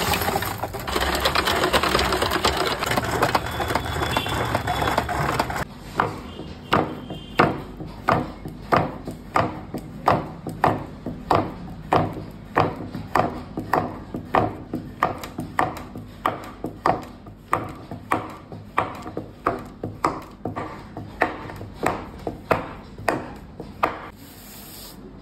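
An ice-cream churn set in ice and salt is worked by hand. It gives a regular sharp knock a little under twice a second, a sign that the mix is being churned to freeze it. This follows a few seconds of dense rattling and scraping, and the knocking stops shortly before the end.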